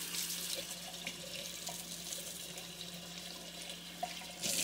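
Kitchen faucet running hot water onto a metal spatula in the sink, a steady splashing hiss that gets louder near the end.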